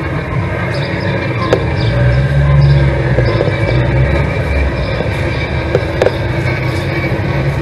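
Outdoor background noise: a steady low rumble that swells about two seconds in, with a few light clicks.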